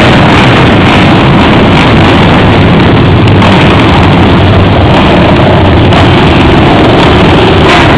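A pack of racing quads (ATVs) riding past, many engines running together, loud and steady.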